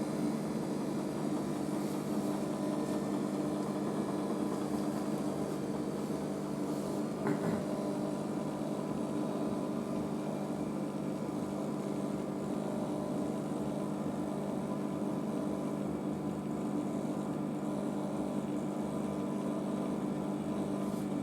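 Washing machine smoothly spinning its drum at speed in the intermediate spin after the wash, about 800 RPM by the owner's guess, with a steady hum. A brief knock sounds about seven seconds in.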